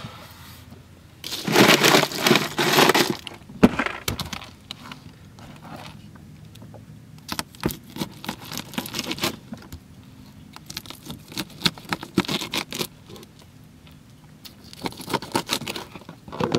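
Ice rattling and crunching as a hand digs a baitfish out of a cooler, loudest for about two seconds a second in. Then a knife cutting the fish into bait chunks on a plastic cooler lid: a string of sharp taps and knocks.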